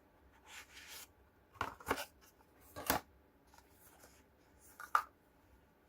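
A product box being opened by hand: a soft rustle, then a few short, sharp clicks and scrapes about two, three and five seconds in.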